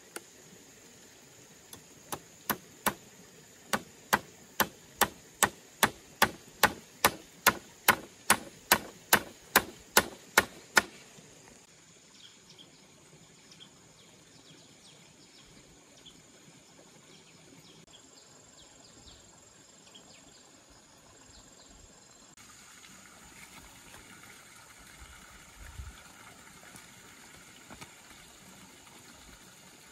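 Hammering on bamboo poles while assembling a bamboo frame: about two dozen sharp strikes, about three a second and growing louder, which stop about eleven seconds in. After that, quiet outdoor ambience with faint insect chirps.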